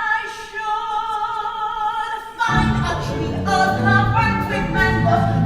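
Musical theatre singing: one high voice holds a long note with vibrato, then about two and a half seconds in the accompaniment and more voices come in with a low bass line and a quicker moving melody.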